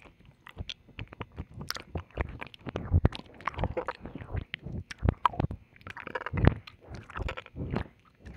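Wet ASMR mouth sounds right at the microphone: irregular licking and kissing smacks with quick wet clicks and squelches, several a second.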